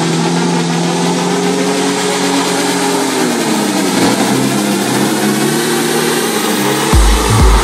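Small hovercraft's engine and ducted fan running steadily, the pitch easing down about three to four seconds in as it slows and turns. Near the end a regular low thumping starts, about twice a second.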